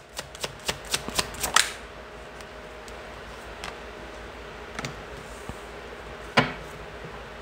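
Tarot cards being shuffled by hand: a quick run of card clicks over the first couple of seconds, then a few scattered soft clicks as the cards are handled, with one sharper click near the end.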